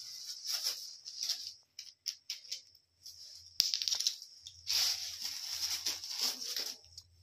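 Tissue-paper packing rustling and crinkling in uneven stretches as it is pulled by hand off a plastic toilet seat's hinge fittings, with small plastic clicks and one sharp click a little over three and a half seconds in.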